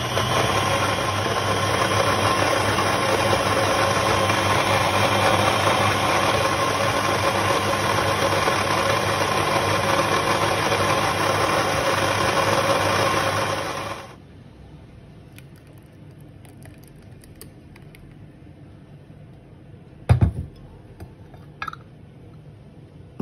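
Electric kitchen blender motor running steadily for about fourteen seconds, then switching off. A sharp knock follows several seconds later.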